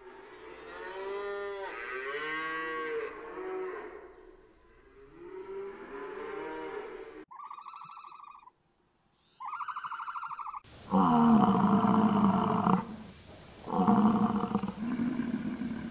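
Cattle mooing, several long calls that bend up and down in pitch. Two short, higher calls follow, and then from about eleven seconds in come loud, repeated bellows from American bison.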